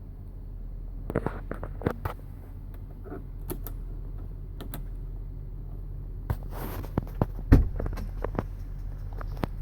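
2003 Range Rover's BMW-built 4.4-litre M62TUB44 V8 idling steadily, with a scattering of irregular sharp clicks and knocks over it, the loudest about three-quarters of the way through.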